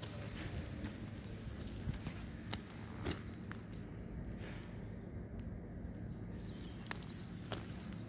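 Scattered footsteps crunching on gravel over a steady low background hum, with faint bird chirps in the background.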